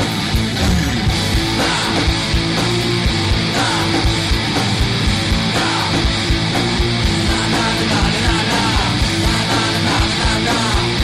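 Loud rock music with distorted electric guitars and a fast, steady drum beat, without vocals.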